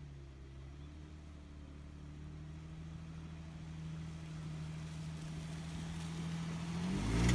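Infiniti FX35's 3.5-litre V6 engine running steadily at low revs as the SUV creeps closer over a muddy dirt track, growing gradually louder. Near the end the engine revs up, its pitch rising sharply.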